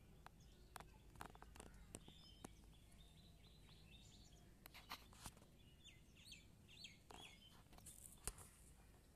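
Faint bird chirps in quiet outdoor air, in short runs, with a few sharp clicks scattered through.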